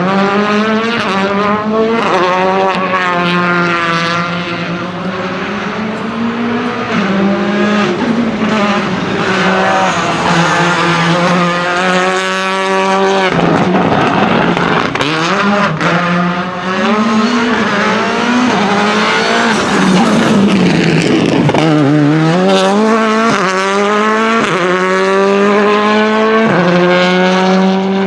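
Rally car engine revving hard through a stage, its pitch climbing and dropping again and again with gear changes and lifts off the throttle.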